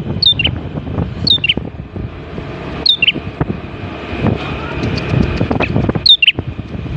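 Prenjak (prinia) calling: a short high call that drops in two steps, repeated four times at uneven gaps, over low rustling and handling noise.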